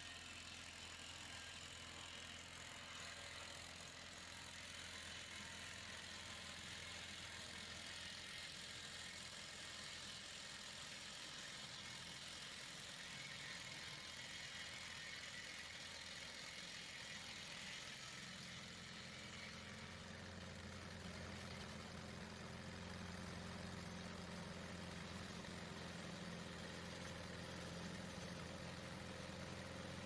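Timberchamp portable sawmill running, its engine-driven blades cutting through a log, a steady mechanical drone with a hiss from the cut. About two-thirds of the way through, the high hiss fades and the low engine hum grows stronger.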